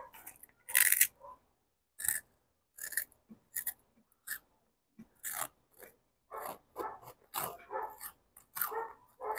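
A child chewing and crunching a crisp snack: short, irregular crunches with brief pauses between them.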